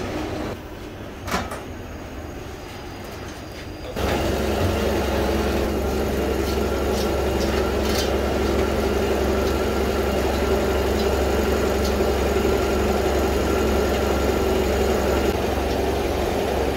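Workshop machinery running steadily with a low hum, cutting in abruptly about four seconds in. Before it, quieter background with a sharp knock or two.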